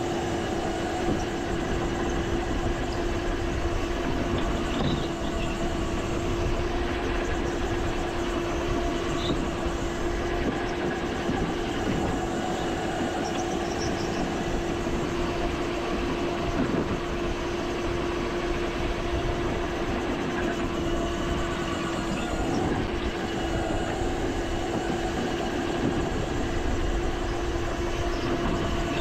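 Go-kart running on track, heard from on board: a steady hum that holds one pitch throughout over a continuous rattling rumble of the kart and its tyres.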